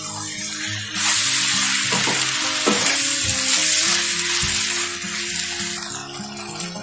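Chicken pieces sizzling in hot oil in a kadai as they are stirred and spread out with a spatula; the sizzle starts about a second in and eases off after about five seconds, with a couple of knocks of the spatula against the pan. Background music plays underneath.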